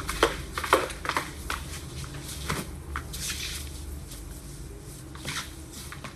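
Clothes hangers clicking and knocking together, with clothes rustling, as garments on hangers are handled. The clicks come in a quick string in the first second or so, then scattered, over a low hum.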